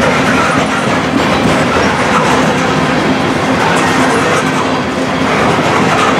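Covered hopper cars of a freight grain train rolling past: a steady rumble and clatter of steel wheels on the rails, with a faint steady hum underneath.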